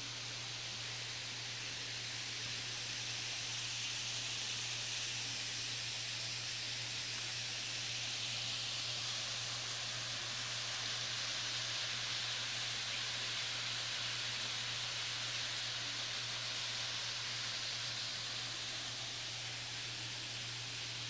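Steady rushing of a waterfall and creek, a continuous even hiss that gets a little louder in the middle.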